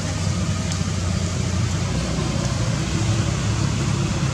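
Steady low rumbling background noise with a fainter hiss above it, and no animal calls.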